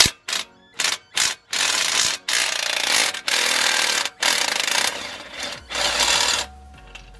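Cordless impact driver with a socket extension hammering on an engine bolt: a few short blips, then five longer runs of about a second each until the bolt breaks loose.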